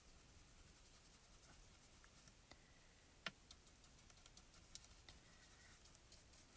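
Very faint brushing of a small paintbrush working dry shimmer powder through a plastic stencil onto card, with a few light ticks, the sharpest about three seconds in.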